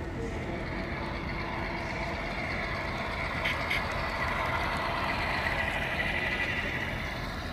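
HO scale model freight train running along the track, its wheels and motor making a steady rolling whir that grows louder through the middle and eases off near the end. Two short clicks a little over three seconds in.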